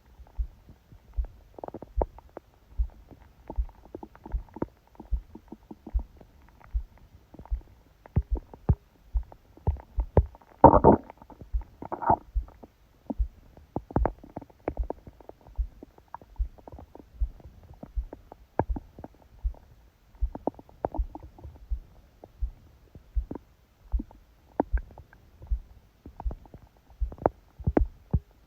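A sleeping person's stomach growling and gurgling over a steady, fast heartbeat, picked up by a phone pressed against the belly under a book. The heartbeat comes about one and a half to two beats a second. The loudest gurgle comes about ten seconds in, with a shorter one a second later.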